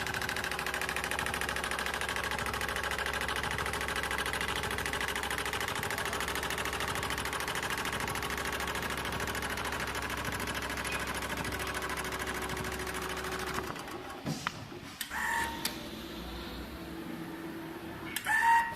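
Richpeace automatic sewing machine stitching in a fast, even rhythm, stopping suddenly about three-quarters of the way through. A few short mechanical sounds follow.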